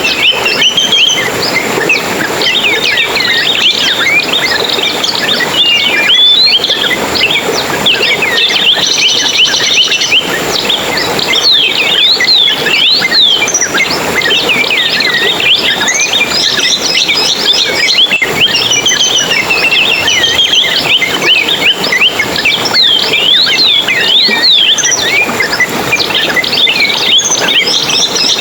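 A dense chorus of small songbirds chirping and twittering, many quick rising and falling whistled calls overlapping without a break, over a steady hiss.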